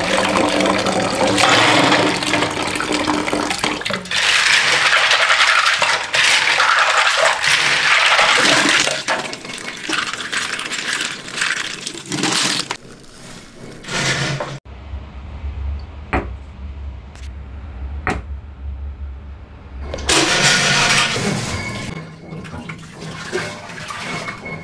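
Tap water running into a metal pot of pressure-cooked freshwater snails, with the shells clicking and clinking as hands stir and rinse them. The water stops for a few seconds partway through, leaving scattered shell clicks over a low hum, then runs again briefly.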